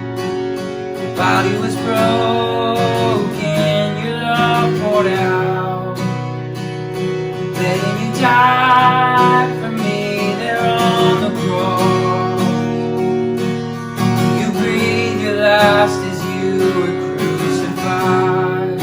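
Contemporary worship music led by acoustic guitar, with a melody line in phrases of a few seconds over sustained chords.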